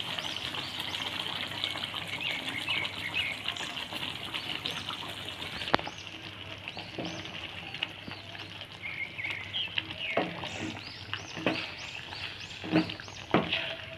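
Chicken curry simmering and spluttering in the pot as dry-fruit paste is added, with several sharp knocks of a utensil against the pan in the second half. Birds chirp faintly in the background.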